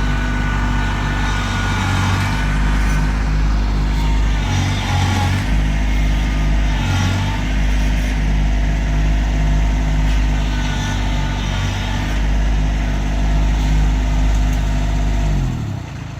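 Kubota LX2610 compact tractor's three-cylinder diesel engine running at high revs under load as it pulls on a strap around a dead tree, its note wavering now and then. Near the end the revs fall away as the throttle is backed off.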